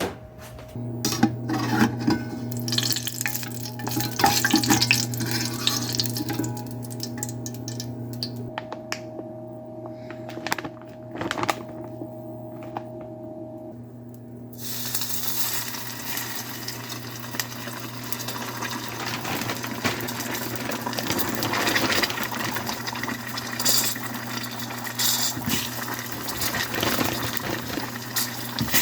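Kitchen utensils and pots clattering over a steady low hum. About halfway through, a steady sizzle starts suddenly as frozen karaage goes into hot frying oil, and it runs on with occasional clicks and pops.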